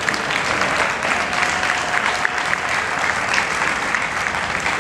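Audience applauding, a dense and steady clapping.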